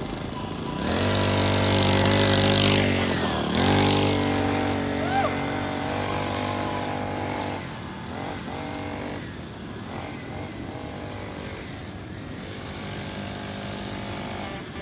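Small 40cc two-stroke pocket bike engine revving hard as the bike pulls away, with a quick dip in revs about three and a half seconds in before it climbs again. After that it carries on more quietly as the bike rides off.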